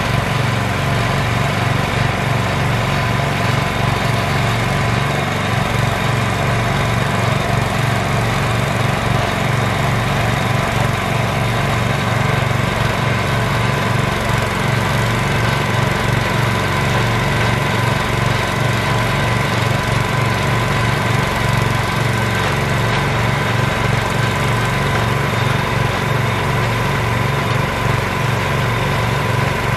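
Engine of a homemade hydraulic water-well drilling rig running steadily at a constant speed while the rig drills, with a thin steady whine over the low drone.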